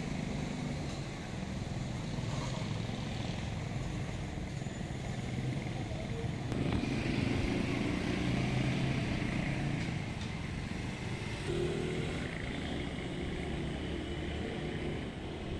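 A motor vehicle engine running steadily. It grows louder about six seconds in and eases off again after about ten seconds.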